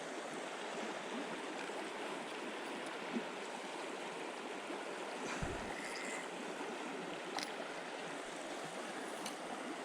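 Steady rushing of flowing river water, with a few faint clicks and a soft low thump about five and a half seconds in.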